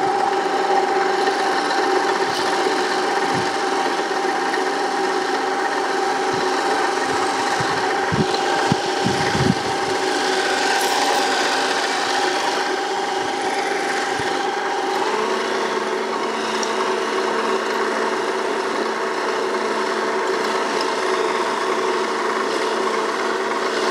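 Toro eFlex battery-electric walk-behind reel mower, fitted with a groomer unit, running while cutting grass: a steady motor whine over the rasping hiss of the spinning cutting reel. Its pitch shifts about fifteen seconds in.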